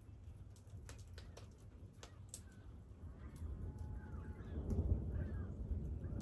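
Birds calling, over scattered sharp crackles and pops, with a low rumble that swells about halfway through and stays.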